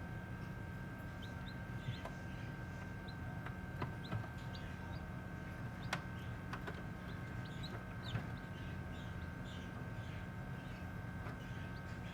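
Newly hatched chicks peeping with short, high chirps scattered throughout, over a steady electrical hum, with a few faint sharp clicks.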